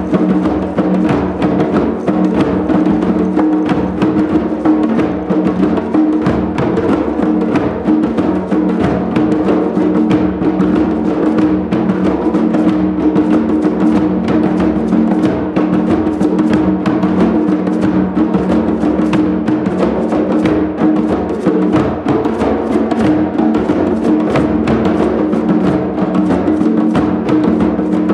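Group hand drumming on djembes and other hand drums, many players striking together in a dense, steady groove of overlapping slaps and tones that never breaks.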